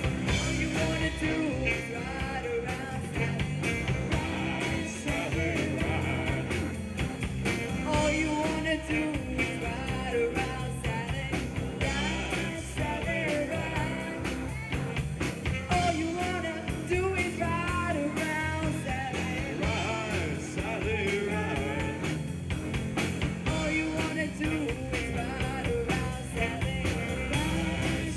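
Live rock band playing, with singing and guitar over a steady beat.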